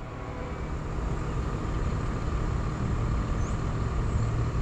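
Low, steady rumble of approaching diesel freight locomotives, growing slowly louder.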